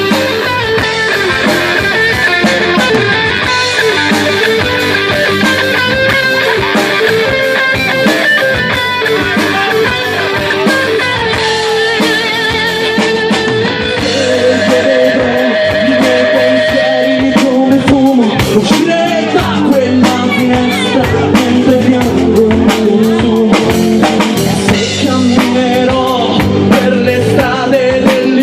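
Live rock band playing, with electric guitars and a drum kit. The music gets louder and fuller about halfway through, and the drum hits come through more strongly after that.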